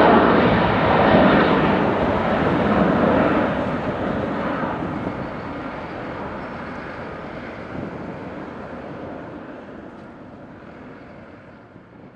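Boeing 777-300ER's twin GE90-115B jet engines at takeoff thrust: a broad roar that fades steadily as the airliner climbs away.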